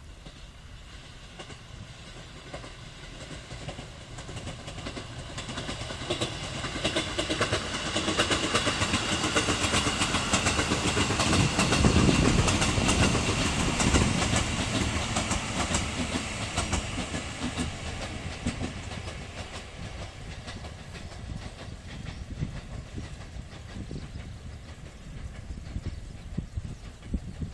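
Electric commuter train passing at speed, its wheels clattering over the rail joints. It grows louder as it approaches, is loudest about halfway through, then fades slowly as it runs away.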